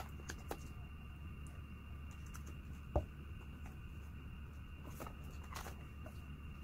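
Handling noises of an unboxing: a few light taps and clicks, the sharpest about three seconds in, and brief rustles of packaging a little after the middle, over a steady low hum.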